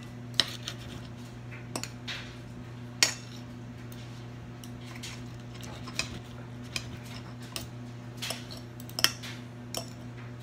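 Knife and fork clinking and scraping against a ceramic plate while cutting grilled ham and pineapple, in irregular taps with sharper clicks about three seconds and nine seconds in. A steady low hum runs underneath.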